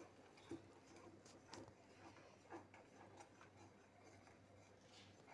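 Near silence, with a few faint clicks of a spoon against a stainless steel pot as thick milk pudding is stirred.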